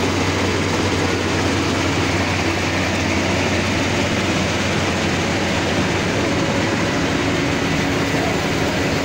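Kubota DC35 rice combine harvester running close by, its diesel engine and threshing machinery making a loud, steady mechanical din with a low hum and a faint whine, as the machine drives into standing rice to start cutting.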